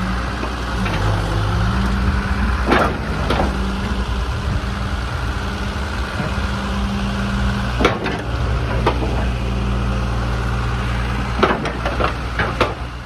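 Hitachi UH045-5 hydraulic excavator's diesel engine running steadily, with a short change in its note about a second in. Sharp metallic knocks come twice around three seconds in, again around eight to nine seconds, and in a quick cluster near the end.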